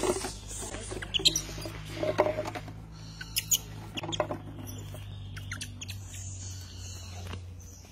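Infant rhesus macaque giving a string of short, high squeaks, several over a few seconds, over a low steady hum.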